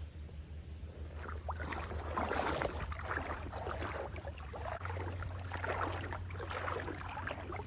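Creek water swishing and splashing in irregular strokes as a person wades through it, starting about a second in.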